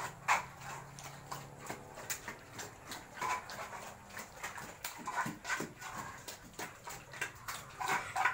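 Pig grunting a few short times in its pen, about a second in, around three seconds, around five and a half seconds and near the end, over many small clicks.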